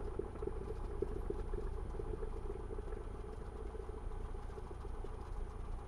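Cessna 172R's four-cylinder Lycoming engine idling just after a cold start, heard from inside the cabin as a steady low drone with a faint pulsing that evens out.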